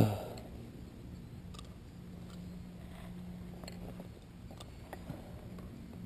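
Quiet outdoor background with about five faint, scattered clicks and ticks of a hunter's gear being handled. The fading tail of a loud bang trails off at the very start.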